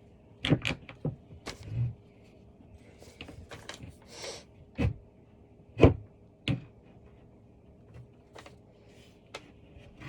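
Irregular knocks and clicks of cat tree parts being handled and set down during assembly, the loudest about six seconds in, with a brief rustle about four seconds in.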